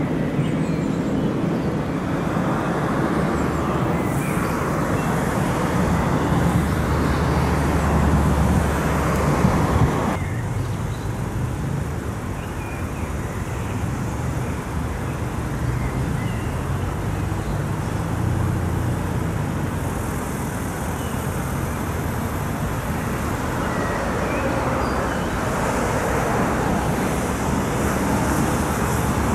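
Freight trains approaching on an electrified main line, heard as a steady rumble and hum. The first train's rumble swells over the first ten seconds and cuts off abruptly. After that a lower, steadier rumble comes from a container train hauled by an electric locomotive, drawing nearer and growing slightly louder near the end.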